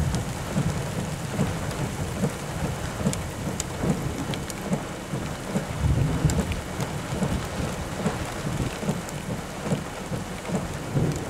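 Thunderstorm noise: a steady hiss of rain with a low rumble that swells and fades irregularly, and scattered sharp raindrop ticks.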